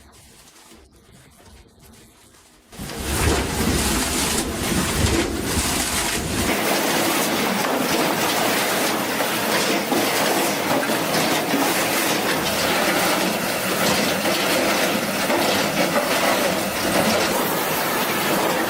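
Faint rubbing at first, then about three seconds in a loud, dense machine clatter starts suddenly and runs on steadily: heavy wood-processing machinery at work, with a deeper rumble during its first few seconds.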